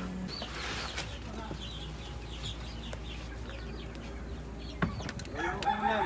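Chickens clucking, with short high bird chirps throughout; a rooster starts to crow near the end.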